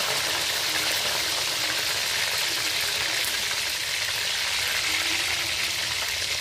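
Coated chicken wings deep-frying in hot oil in a wok: a steady, even sizzle.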